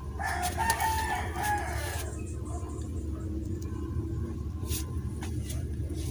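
A rooster crowing once, one call of nearly two seconds near the start, over a low steady hum and a few faint clicks.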